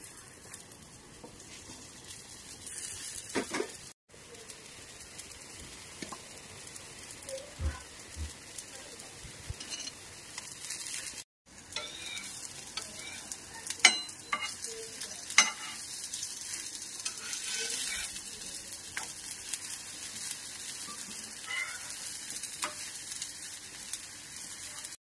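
Spinach kebab patties sizzling as they shallow-fry in oil on a griddle (tawa), a steady hiss. A metal spatula clicks and scrapes against the pan a few times.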